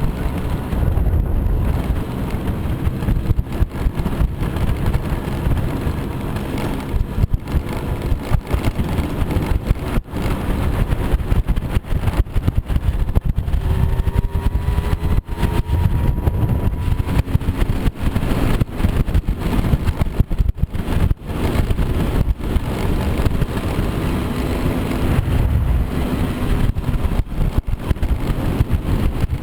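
Moped scooter engine running as it is ridden along a rough off-road trail, with faint engine tones that rise and fall in pitch, under heavy rumbling wind and jolting noise on the microphone.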